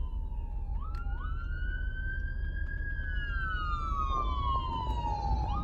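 Ambulance siren in wail mode, heard as two overlapping tones a fraction of a second apart. The tone sweeps up quickly about a second in, rises slowly, then falls slowly for a few seconds before sweeping up again near the end. A low road and engine rumble runs underneath.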